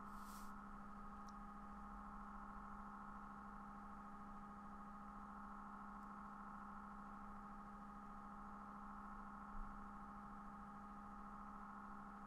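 Faint steady electrical hum made of a few constant tones, one low and several mid-pitched, with a brief hiss right at the start.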